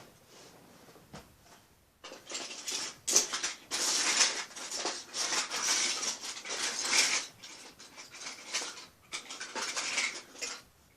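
Rummaging through a pile of small plastic Lego pieces, with continuous irregular clattering and rustling that starts about two seconds in and stops shortly before the end.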